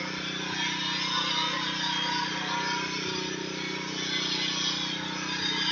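Pressure washer's engine running steadily at one pitch, with a hiss over it.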